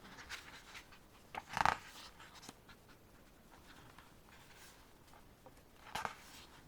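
Faint paper handling as the pages of a photo book are turned, with two louder page flips, about a second and a half in and near the end.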